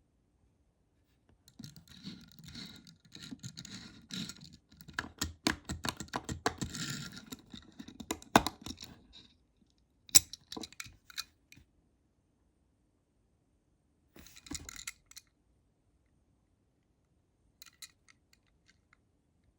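Close-up handling of a Tomica die-cast toy car and its packaging: a run of rustling with many small clicks and taps, a sharp click about ten seconds in, then a few scattered clicks.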